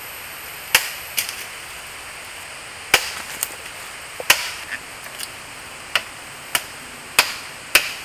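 Dry dead bamboo cracking and knocking as poles are cut and pulled down: about ten sharp cracks at uneven intervals.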